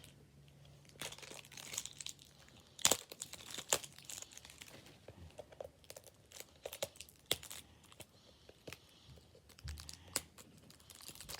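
Wrapping on a toy surprise ball crinkling and tearing as its last layer is unwrapped by hand, with irregular sharp crackles; the loudest is about three seconds in.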